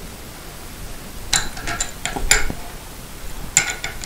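Light metallic clinks of two adjustable wrenches knocking against each other and against a pair of nuts locked together on a bolt, a handful of scattered taps starting about a second in.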